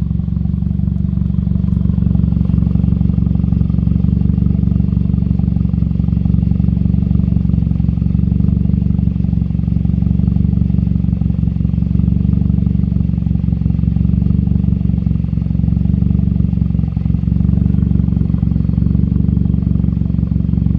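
2008 Dodge Caliber SRT-4's turbocharged 2.4-litre four-cylinder engine idling steadily.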